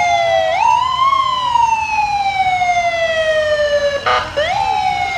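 Ambulance's electronic siren, swept up quickly and let wind down slowly, twice, with a short blast about four seconds in.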